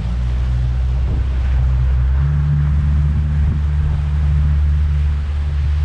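Outboard motor of a skiff running under way, a steady low drone that picks up about two seconds in, with wind buffeting the microphone and water rushing along the hull.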